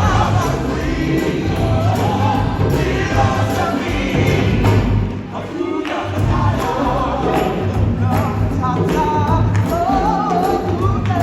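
Upbeat music with a choir of voices singing over a steady bass beat.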